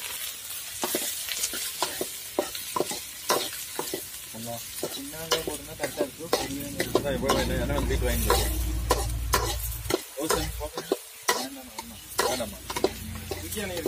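Chopped onions sizzling in oil in a metal wok over a wood fire, stirred with a metal ladle that clinks and scrapes against the pan many times. A low rumble runs for a few seconds in the middle.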